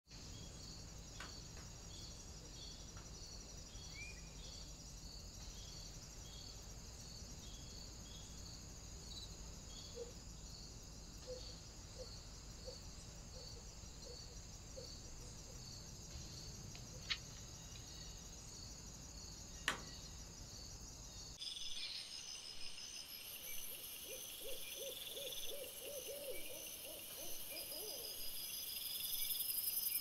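Woodland ambience at dusk and night: insects chirping in a steady pulsing rhythm, with a short run of low hooting notes about ten seconds in and a faster run of them near the end. Two sharp clicks stand out around seventeen and twenty seconds.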